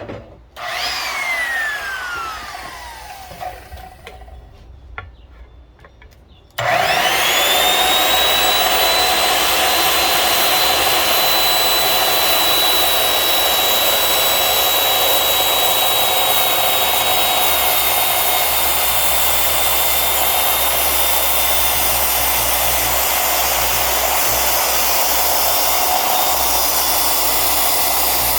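Circular saw with a Hercules 8¼-inch general-purpose blade: a short burst near the start with a whine that falls away over a few seconds as the blade coasts down, then a few clicks. About six and a half seconds in the saw starts up, spins up and runs steadily with a constant high whine while cutting wood.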